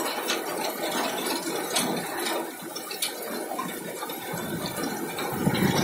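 Hail mixed with rain coming down hard: a steady wash with many small sharp ticks of hailstones striking.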